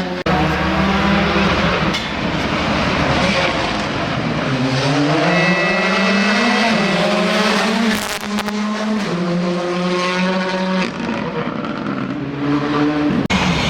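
Rally car engine revving hard on a special stage. The pitch climbs and drops again and again as it shifts gears and comes on and off the throttle through the corners.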